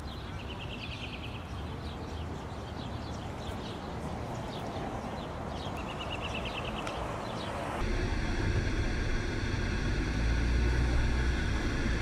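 Steady outdoor background noise with two short high trills, then from about eight seconds in the steady low rumble of a running motor vehicle.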